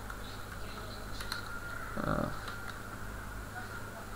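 A few scattered keystrokes on a computer keyboard over a steady low hum, with a short low sound about two seconds in.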